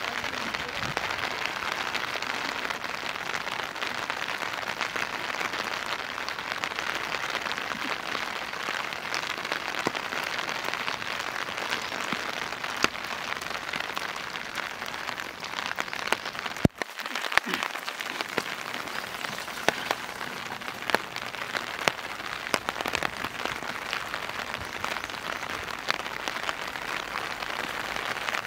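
Steady rain falling, with frequent sharp ticks of drops striking nearby surfaces. The sound briefly dips about seventeen seconds in.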